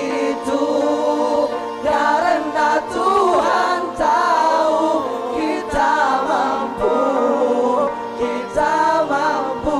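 A vocal group singing in harmony, largely a cappella: a lead melody moves over held background chords, with occasional short percussive hits.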